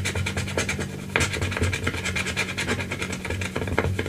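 Scratch-off coating being scratched off a cardstock savings challenge card in quick, repeated strokes, uncovering the hidden dollar amount.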